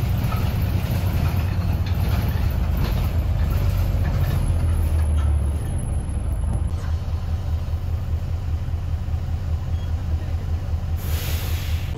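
City bus engine and road rumble heard from inside the passenger cabin, a steady low drone that eases off a little about six seconds in.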